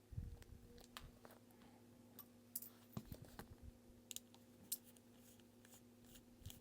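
Faint, scattered light clicks and taps of small tools and watch parts being handled during disassembly of a resin G-Shock watch, with a couple of soft low bumps.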